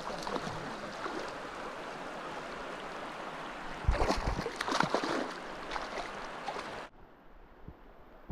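Steady rushing of river shoal water, with a burst of splashing and knocks about four seconds in as a hooked shoal bass is brought to the kayak. The water noise cuts off suddenly near the end.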